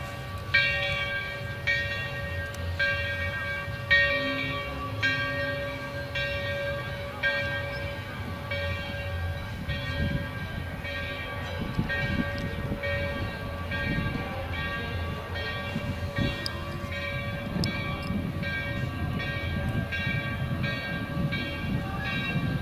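An electric trolley approaching on rails, a low rumble under a bell that rings about once a second.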